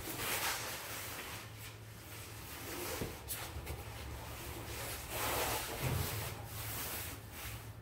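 Large sheets of cardboard being handled and pushed into place, with repeated rubbing and scraping swishes and one sharp knock about three seconds in.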